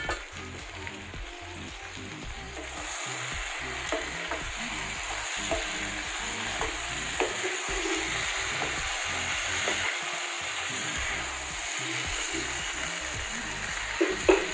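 Potato and brinjal curry sizzling in a frying pan while a spatula stirs it, scraping and tapping against the pan, with a few louder knocks near the end.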